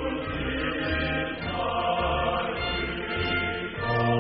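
Choral music: voices holding chords over low sustained notes, the harmony shifting every second or so.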